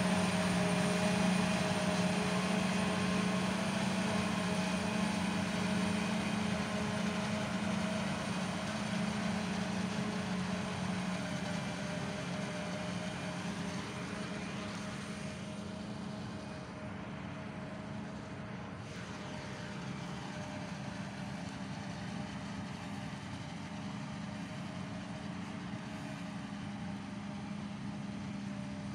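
John Deere self-propelled forage harvester chopping maize for silage, with a tractor and trailer running alongside: a steady machine drone with a strong low hum. It grows fainter over the first half as the machines draw away.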